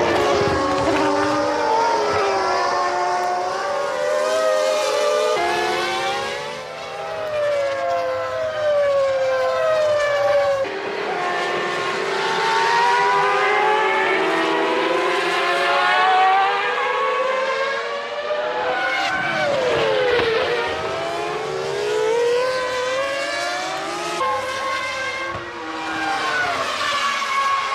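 Formula One cars' V10 engines at racing revs, several at once, their pitch climbing and dropping with gear changes and passing cars. The sound jumps abruptly a few times as the shots cut.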